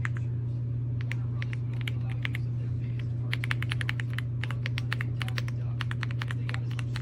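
Typing on an EPOMAKER x Aula F75 gasket-mounted 75% mechanical keyboard: irregular runs of key clicks, densest a few seconds in, over a steady low hum.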